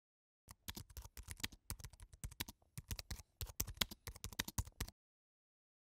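Typing sound effect: a quick run of keystroke clicks, roughly ten a second, stopping about a second before the end, as the on-screen text is typed out.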